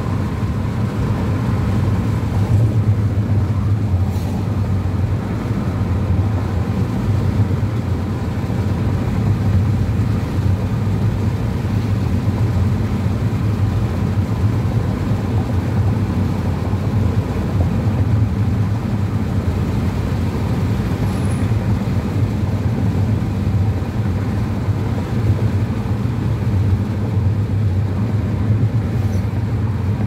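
Steady low rumble of a car's engine and tyres on a paved road, heard from inside the moving car.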